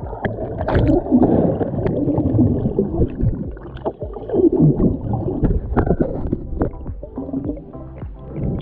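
Muffled underwater water noise picked up by a submerged action camera: sloshing and gurgling as the camera moves through the water, with scattered small clicks.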